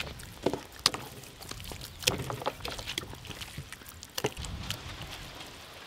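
Hands rubbing thick, wet masala paste onto raw whole chickens on a steel tray: irregular wet smearing, with a few sharp knocks against the tray.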